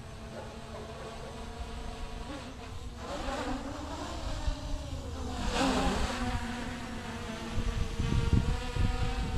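Armattan CNC 258 quadcopter's brushless motors and propellers buzzing in flight, the pitch bending up and down as the throttle changes. The sound swells louder about halfway through. Wind rumbles on the microphone near the end.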